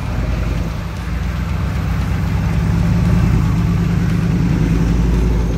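Chevy K5 Blazer's 6.2-litre turbo diesel V8 pulling the truck through deep snow, getting louder over the first few seconds as it comes close by.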